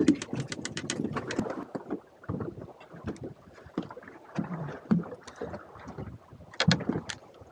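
Water knocking against the hull of a small fishing boat, with irregular handling knocks. A quick run of sharp clicks comes in the first second and a half, and a few more come near the end.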